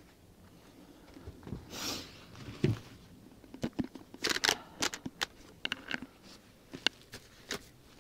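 Rustling and scattered clicks of camping gear being handled, with a dull knock about two and a half seconds in and a quick run of clicks and rustles around the middle.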